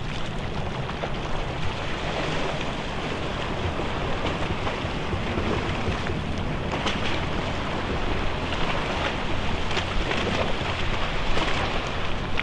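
Wind buffeting the microphone in a steady rushing noise, over the distant sound of a gas-turbine jetfoil ferry running at speed on its foils.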